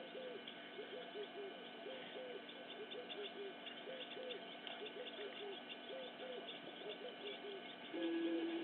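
Wild animal calls: a steady run of short, low, falling notes repeating about twice a second, with fainter high chirps above. Near the end a louder steady low tone sets in.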